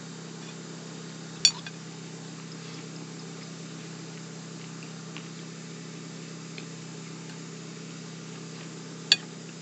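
Two sharp clinks of a fork against a dinner plate, about seven and a half seconds apart, over a steady low hum.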